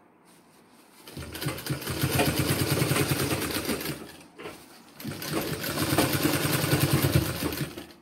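Sewing machine stitching fabric in two runs of about three seconds each, with a short stop between them. The needle strokes come fast and even.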